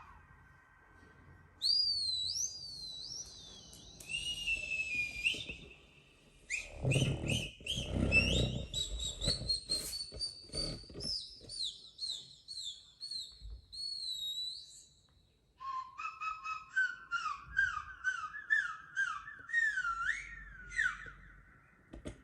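Strange high whistling sounds: wavering, sliding pitches and runs of quick repeated chirps. A short low muffled rumble comes about seven seconds in.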